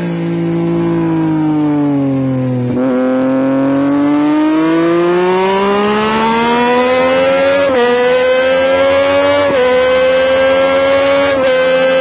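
Triumph Street Triple's inline-three engine and exhaust at full race pace, heard from a microphone under the seat. The engine note falls as the bike slows for the first few seconds, then climbs steadily under hard acceleration and holds high, with brief dips about eight, nine and a half and eleven and a half seconds in.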